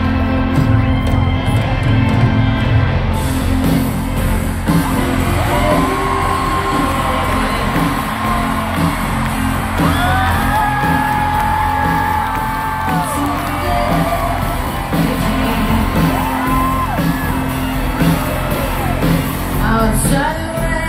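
Live rock band playing loud through a concert PA, heard from the audience, with singing and several whoops and yells rising above the music in the middle of the stretch.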